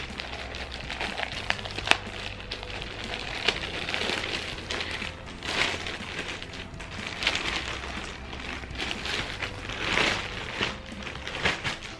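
Thin clear plastic poly bag crinkling and rustling in irregular bursts as a folded cloth item is pulled out of it, with two sharp crackles about two seconds in and again a second and a half later.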